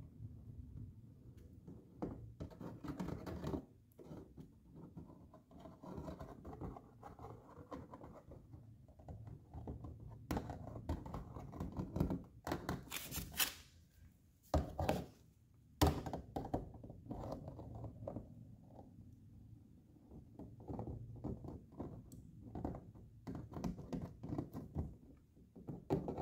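Irregular handling noise of a metal tube of adhesive being squeezed and dabbed along the edge of a metal mesh grill fitted in a plastic bumper cover: scattered light scrapes, clicks and knocks, with a few sharper knocks about midway.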